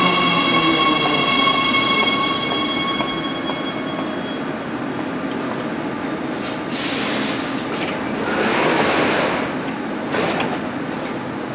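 Siemens Inspiro metro train braking to a stop at the platform, its electric traction motors whining and fading out about four seconds in. Then come bursts of hiss and the sliding doors opening.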